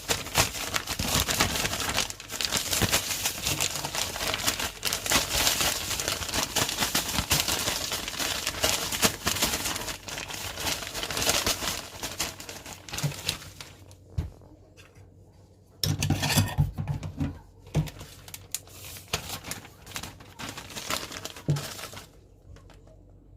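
Plastic crinkling and rustling with small clicks and clatter, as of shrimp bait being handled and packed in plastic. It runs busily for most of the first half, stops, comes back in a short loud burst, then trails off into scattered clicks.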